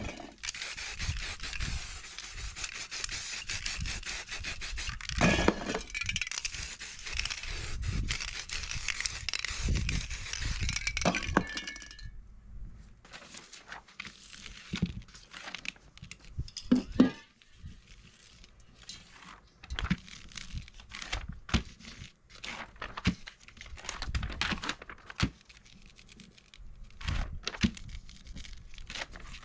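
Aerosol spray paint can hissing in long spurts with short breaks for about the first twelve seconds. After that, magazine paper is laid, pressed and rubbed by hand onto the painted card, in scattered rustles, rubs and taps.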